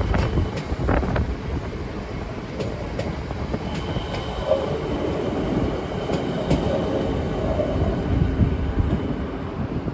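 Siemens Nexas electric suburban train running along the platform road, a steady rumble with scattered sharp clicks of the wheels over the rail joints.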